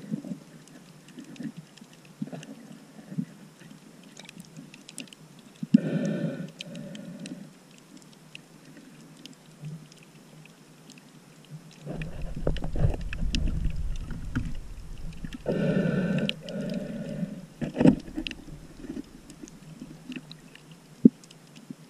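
Underwater sound of a snorkeler breathing through a snorkel tube: a hollow two-part breath about every nine to ten seconds, over faint scattered clicks. A low rumble of moving water runs for a few seconds in the middle.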